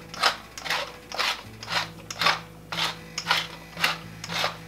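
Wooden pepper mill grinding black pepper, in short grinding bursts about two a second, one for each twist.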